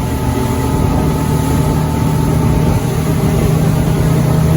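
Small boat's outboard engine running steadily under way, its hum growing slightly louder toward the end.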